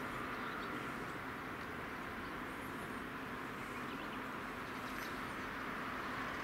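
Steady outdoor background hiss with a faint low hum, and a few faint, short, high bird chirps about every two and a half seconds.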